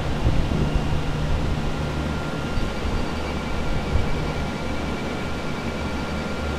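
Air mover (centrifugal carpet-drying fan) running steadily: a constant rushing of air over a low hum, with a faint thin high whine above it.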